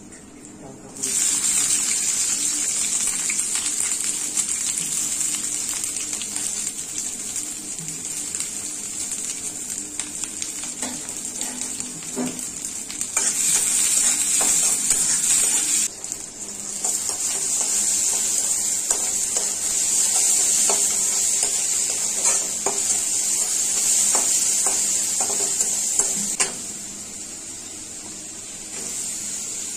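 Sliced onion and vegetables hit hot oil in a metal karahi and sizzle loudly from about a second in. A spatula scrapes and clicks against the pan as they are stirred. The sizzle dips briefly about halfway through and turns quieter near the end.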